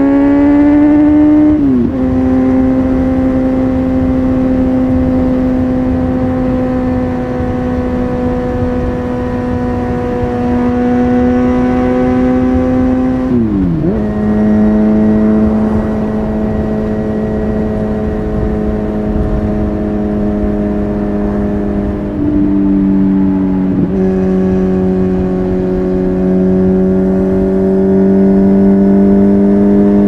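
Kawasaki Z900's inline-four engine through an Akrapovic carbon full exhaust system, on the move. Its pitch climbs under acceleration, then drops sharply just before two seconds in at an upshift, and the engine cruises steadily. Another sharp drop about halfway settles it at a lower pitch, and there are brief dips again a little past two-thirds of the way through.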